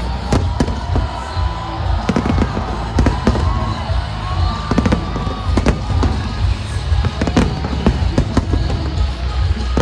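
Aerial fireworks shells bursting in a rapid, irregular string of bangs over a continuous deep rumble, with the show's accompanying music playing underneath.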